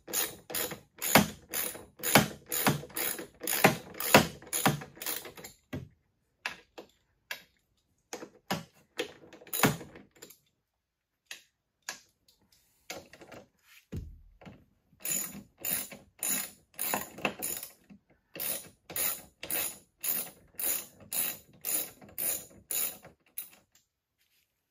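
Socket ratchet wrench clicking in steady strokes, about three clicks a second, as the chain case cover bolts are loosened. The clicking pauses a couple of times in the middle and stops shortly before the end.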